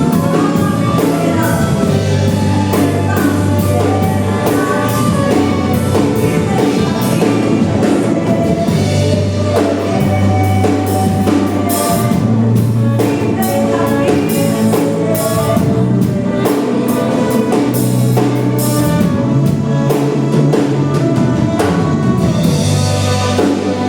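Worship band playing an instrumental passage with drum kit, bass and keyboard-like sustained chords at a steady beat.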